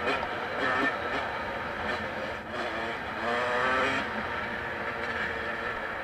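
Motocross dirt bike engine under load, heard from the rider's helmet camera, revving up and easing off as the bike accelerates along the track, with steady rushing noise underneath.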